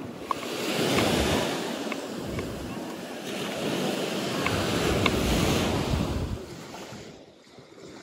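Sea waves washing onto the shore: two slow swells of surf, the first about a second in and the second around five seconds in, fading away near the end, with a few light clicks.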